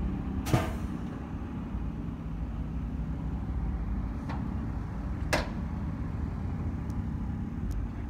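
A vehicle's engine running steadily with a low rumble, with a sharp click about half a second in and two more knocks around four and five seconds in.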